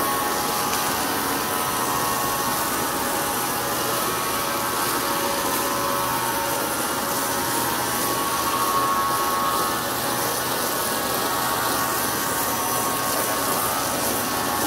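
Steady hiss and motor whir of a powered sprayer misting cleaning solution across a carpet.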